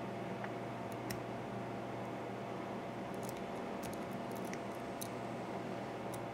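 Faint, scattered light clicks and scrapes of a homemade hook pick working the pin stack of an American Series 5200 padlock under a paperclip tension wrench, over a steady hum.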